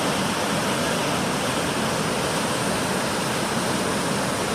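Large waterfall crashing down: a steady, loud rush of falling water.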